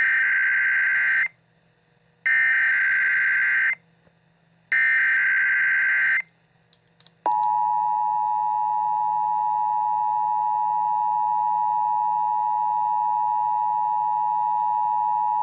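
Emergency Alert System header: three short bursts of warbling SAME data tones, then, about a second later, the steady two-tone EAS attention signal sounding without a break.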